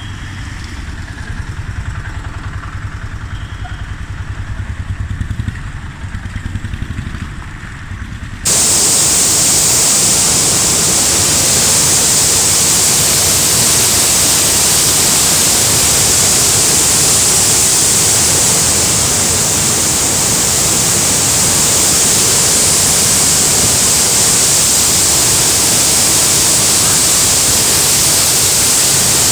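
A low rumble for the first several seconds, then a sudden cut to a loud, steady rush of water from heavy rain or flooding.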